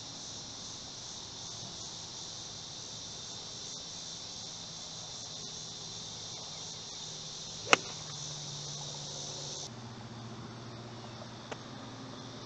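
Insects chirring steadily in a high band. About two thirds of the way through, a golf iron strikes the ball with one sharp click. The insect sound cuts off abruptly soon after, and a fainter club-on-ball click follows near the end.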